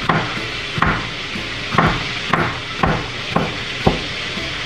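Kitchen knife chopping a green bell pepper on a cutting board: about seven sharp knocks of the blade striking the board, irregularly spaced, stopping a little before the end.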